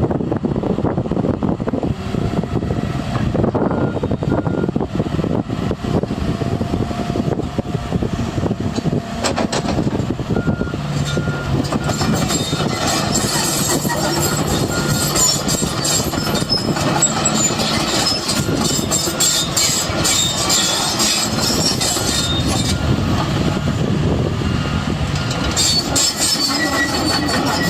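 John Deere 160 excavator running, with continual metallic squealing and clanking, typical of its steel tracks and undercarriage while the machine moves.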